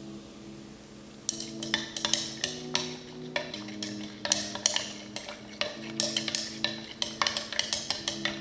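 A utensil stirring, clinking and scraping irregularly against a container as the heated water phase is mixed into the heated oil phase of a homemade conditioner. Soft background music with slowly changing held chords plays underneath.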